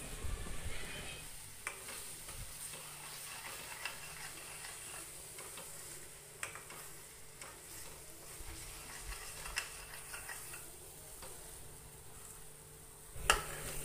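Ground onion-tomato masala paste frying softly in oil in a stainless steel kadhai while a ladle stirs it, with a few clicks of the ladle against the pan and one sharper knock near the end. The masala is being sautéed in the oil until the spices are cooked.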